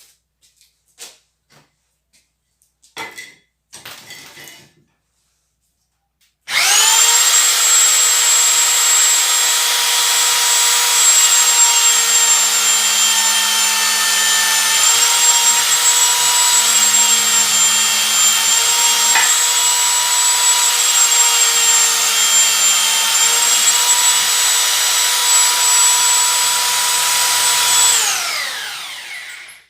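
Homemade bench drill press's electric drill motor switched on about six seconds in, after a few handling clicks. It spins up quickly and runs with a steady whine whose pitch sags slightly a few times, then is switched off near the end and winds down with a falling pitch.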